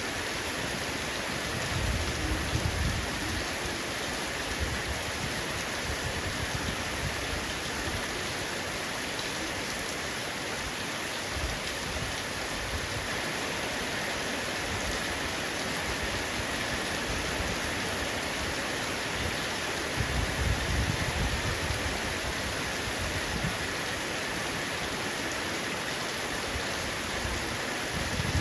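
Heavy rain falling steadily on a roof, a dense even hiss. Low rumbles swell briefly about two seconds in and again about twenty seconds in.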